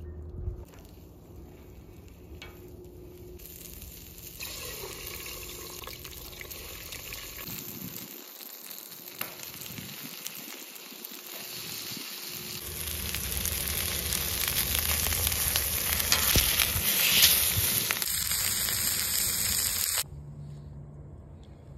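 Asparagus, sliced vegetables and a New York strip steak sizzling on the hot griddle top of a Breeo wood-fired fire pit. The sizzle builds and grows louder through the middle, then stops abruptly near the end.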